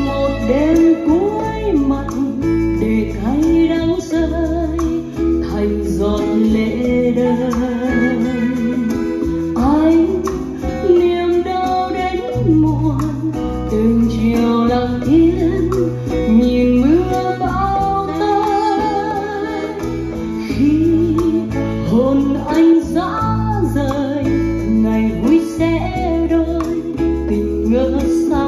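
A Vietnamese ballad played through a pair of Dynaudio Confidence C4 Signature floorstanding loudspeakers: an instrumental passage between sung lines, a melody with wide vibrato over sustained bass notes.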